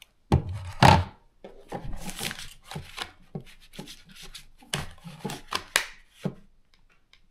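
Knocks, rubs and clicks of a drone and its battery being handled as the battery is fitted into the drone. Two heavier knocks come in the first second, and the clatter stops about six seconds in.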